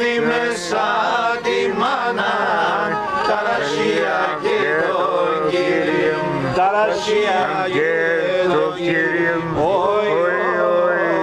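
Men singing a Pontic Greek folk song, with long held, wavering notes.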